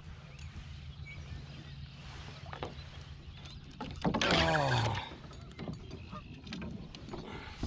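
Water sloshing and swirling beside a fishing kayak as a hooked catfish fights on the line, over a steady low hum that stops about four seconds in. The loudest moment is a sound about four seconds in that slides down in pitch and lasts about a second.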